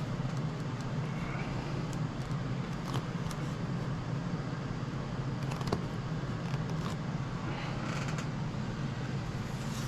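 Steady low background hum with a few faint small clicks and taps from handling parts at the workbench.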